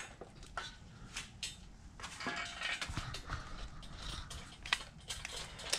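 Scattered light metal clinks and knocks of small hardware being handled: bolts, washers, lock washers and nuts.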